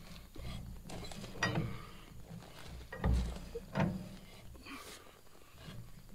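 Thread tap being turned with a big open-end wrench, cutting new threads into an old tractor manifold: the tap and wrench creak and click under heavy effort, with three sharper creaks about one and a half, three and nearly four seconds in.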